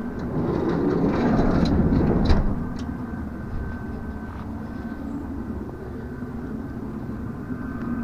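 Motorhome diesel heater running at full power: a steady low rumble with a thin, steady high whine. A louder stretch of rustling and sharp clicks comes in the first three seconds, then the heater runs on evenly.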